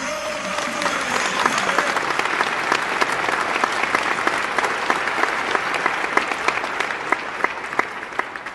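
Applause from many hands, dense clapping that builds about a second in and fades away near the end.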